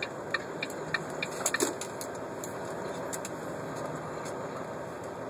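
Semi-truck running, heard from inside the cab as it creeps through a slow turn: a steady engine and road drone. Scattered short clicks and cracks come in the first two seconds, then the drone runs on smoothly.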